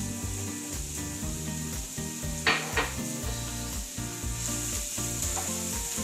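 Chopped onions sizzling in hot olive oil in a frying pan, a steady hiss, with two sharp clacks about two and a half seconds in.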